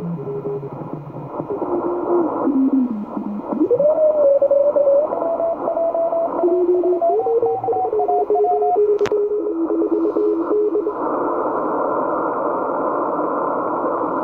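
Shortwave transceiver audio on the 80 m band: Morse-band whistling tones that glide and step up and down in pitch over steady band hiss, with a sharp click about nine seconds in. The tones die out about eleven seconds in, leaving only the hiss.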